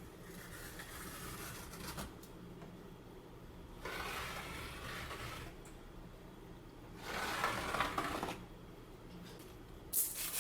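Trowel spreading tile adhesive on the wall: three scraping strokes, each about a second and a half long, the second about four seconds in and the third about seven seconds in.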